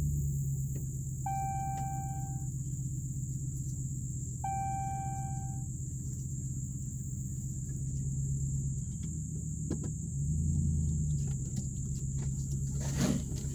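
Dodge Ram pickup's engine running at low speed, heard from inside the cab as a steady low rumble that swells briefly about ten seconds in as the truck pulls harder. Over it run a steady high drone of insects and a short steady beep that sounds twice in the first five seconds. Near the end comes a sharp knock or scrape.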